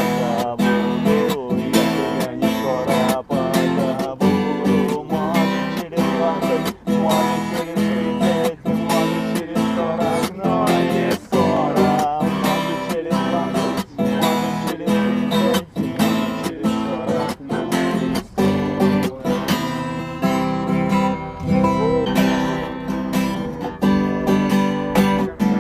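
Acoustic guitar strummed in a steady rhythm, playing an instrumental passage of a song with no singing.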